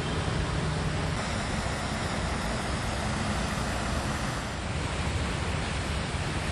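Steady, even outdoor rushing noise with no distinct events; a low hum underneath fades out about a second and a half in.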